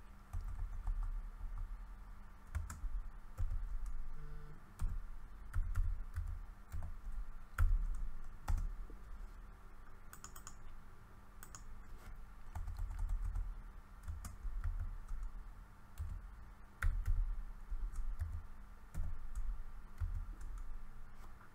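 Typing on a computer keyboard: irregular runs of keystrokes with short pauses between them, over a faint steady hum.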